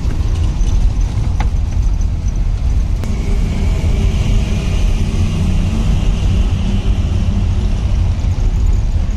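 Car running and road noise heard from inside the cabin while driving, a steady low rumble, with a higher hiss that swells and fades in the middle.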